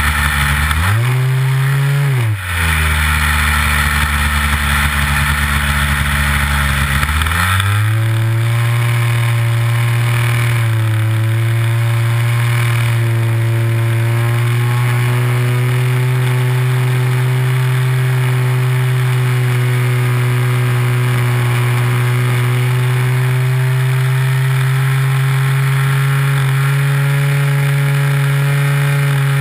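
Nitro glow engine of a Big Stik 60 RC airplane in flight, heard from a camera mounted on the airframe. Its pitch rises briefly about a second in, dips sharply, runs low for about five seconds, then climbs at about seven seconds and holds steady at a higher pitch.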